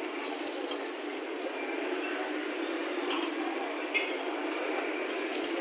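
Metal takoyaki skewers clicking and scraping against the wells of a takoyaki pan as the balls are turned, a few sharp clicks over a steady hiss.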